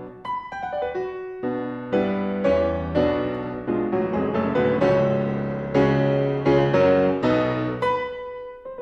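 Background piano music: a slow piece of struck chords and single notes, each ringing and fading before the next.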